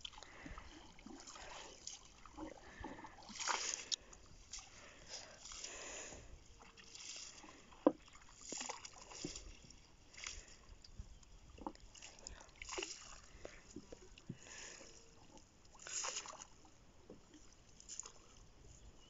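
Faint sloshing and light splashes of water from a wooden canoe being poled out while a net is paid out, with one sharp knock about eight seconds in.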